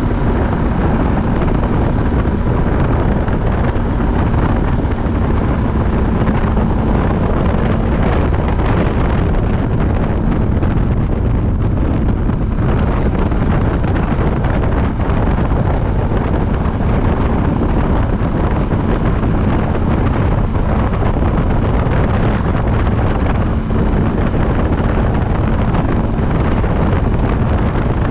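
Heavy wind buffeting the microphone over a quad bike's engine running steadily at speed on sand, with a constant low hum beneath the rush.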